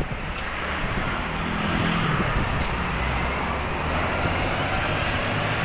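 City street traffic noise: a motor vehicle's engine humming close by over steady road noise.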